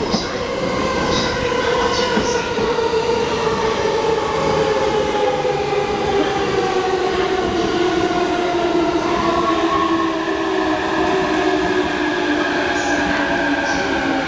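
JR E233-3000 series electric train pulling into the platform, its traction motors whining in several tones that fall steadily in pitch as it slows, with a few short clicks in the first couple of seconds.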